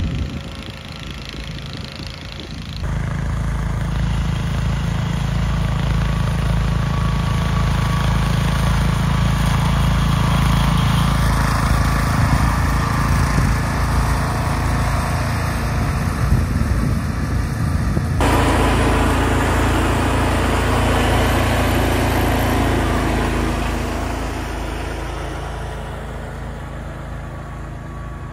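Small garden tractor engine running steadily, the sound changing abruptly about three seconds in and again about eighteen seconds in, and growing quieter near the end.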